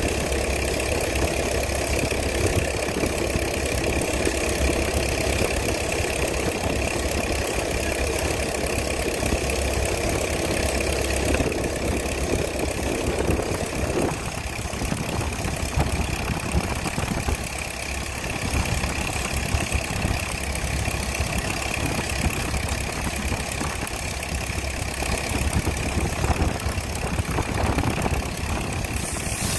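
Combine harvester running steadily: a low diesel drone with a steady high whine over it. About halfway through, part of the mid-range rush eases.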